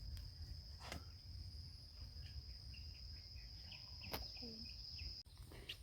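A cricket trilling on one steady high note, which cuts off suddenly near the end. A couple of faint clicks are heard.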